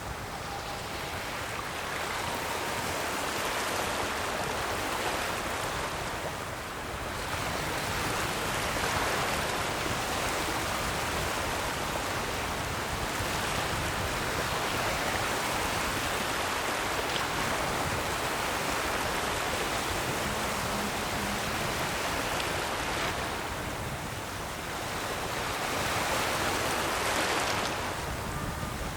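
Ocean waves breaking and washing on a shore, a steady rush of surf that swells and eases every several seconds.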